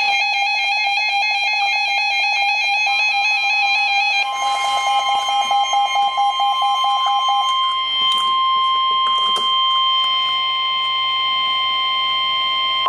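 NOAA Weather Radio EAS alert opening: rapid warbling digital SAME header data tones, then about four seconds in the steady 1050 Hz warning alarm tone. The alarm tone holds for several seconds and cuts off abruptly, the signal that a warning message follows.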